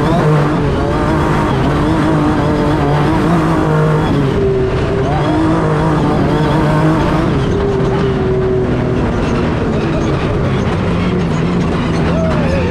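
Honda Ridgeline Baja race truck's engine running hard at high speed on desert dirt, heard from inside the open cab. Its pitch steps up about four seconds in and drops back around nine seconds, over loud wind, tyre and chassis noise.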